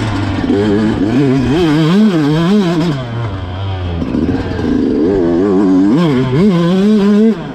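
Yamaha YZ125 two-stroke single-cylinder engine being ridden hard, its pitch rising and falling over and over as the throttle is opened and closed. The sound drops away sharply near the end.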